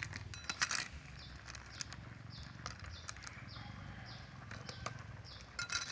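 Cooked snail shells and a metal ladle clinking against a wok and a plastic plate as snails are scooped out, with sharp clicks about half a second in and again near the end. Short high chirps repeat about twice a second through the middle over a steady low rumble.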